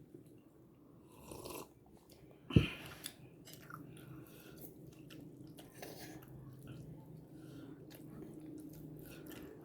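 Person chewing a mouthful of fried noodles with soft, wet mouth sounds, and a single sharp knock about two and a half seconds in.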